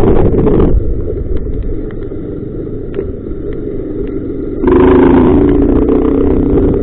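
Honda CG Titan 160 single-cylinder motorcycle engine running through an exhaust modified to sound like a BMW 310. The engine drops to a quieter level about a second in, then comes back louder with a steady note near the five-second mark.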